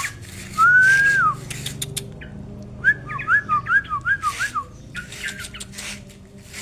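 Sooty-headed bulbul singing: one clear whistled note that rises, holds and falls, then a quick run of about six short up-and-down whistles, with scattered sharp clicks.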